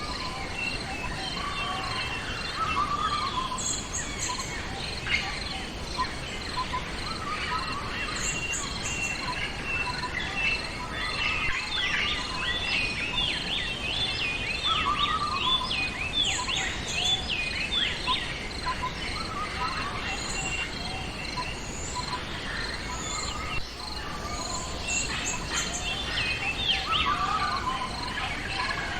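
Several songbirds chirping and trilling, a dense burst of rapid chirps in the middle and more near the end, over a steady background of insects buzzing.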